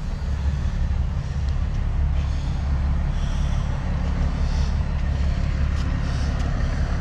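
Heavy truck diesel engine idling: a steady, even low rumble.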